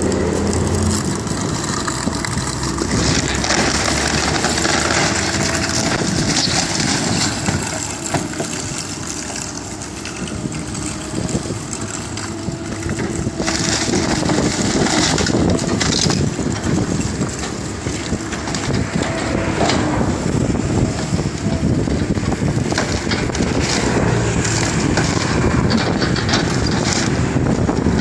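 Tracked excavator demolishing a house: its diesel engine runs under continuous crashing, cracking and crunching as the building's walls and timber are torn apart and fall.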